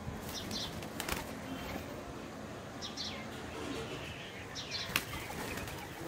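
Doves' wings flapping as they take off from and land on a concrete ledge, with sharp wing claps just after the start, about a second in, and again near five seconds. Small birds chirp in short paired high notes in the background.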